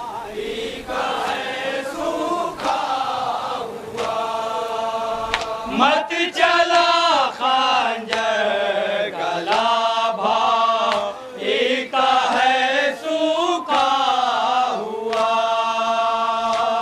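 Men chanting a nauha, a Shia Muharram lament, in unison, with sharp slaps of matam (chest-beating) at uneven intervals through the chant.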